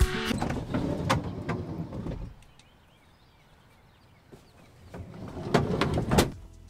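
A camper van's sliding side door and van body clunking and rattling as someone climbs in through the side doorway, with sharp knocks that are loudest about five to six seconds in. A stretch of rumbling and clatter in the first two seconds comes before a quiet lull.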